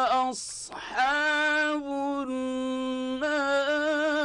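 Male Quran reciter chanting in melodic tajweed style, holding long sustained notes that step in pitch with slight ornamental wavering, on the word 'aṣḥāb' ('companions'). A short hiss of the 'ṣ' sound comes about half a second in.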